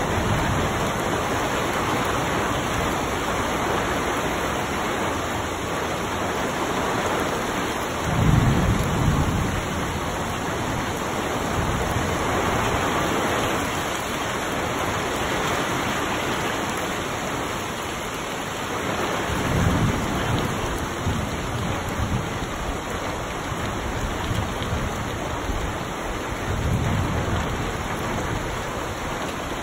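Heavy rain falling steadily on trees and grass, a dense even hiss of a downpour. A brief low rumble comes three times, about a third of the way in, about two-thirds of the way in and near the end.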